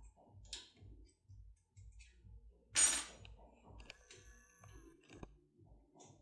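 Turbo decoder being worked in a JUWEL 3+3 safe lock: faint small metal clicks and ticks, with one louder metallic clink that rings briefly about three seconds in.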